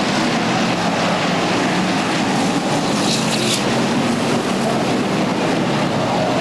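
Several stock-car engines running together loud and steady as the pack races by. A brief high-pitched squeal comes about three seconds in.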